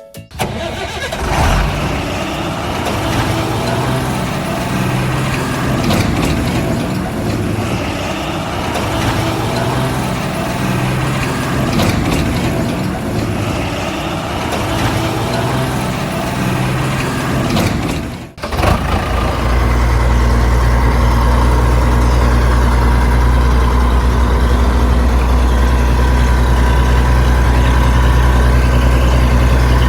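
Heavy vehicle diesel engine: an uneven, changing engine sound for most of the first eighteen seconds, then, after a brief break, a steady low idle.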